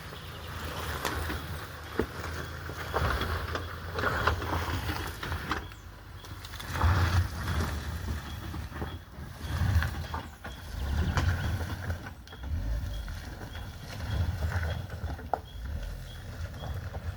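Suzuki Jimny driving down a rough mountain track: a low rumble of engine and tyres that swells and fades every second or two, with a few sharp knocks and rattles.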